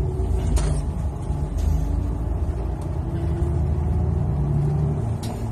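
Bus engine and road rumble heard from inside a moving bus, a steady low drone, with a short click about half a second in.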